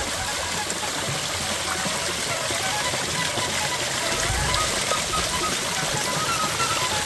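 Water pouring from an artificial rock-wall cascade and splashing into a shallow pool, a steady rushing splash. Faint short tones sound in the second half.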